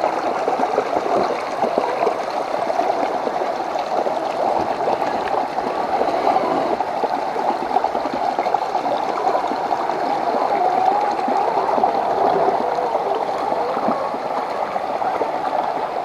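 Water gurgling and churning steadily, a dense, even rush of moving water.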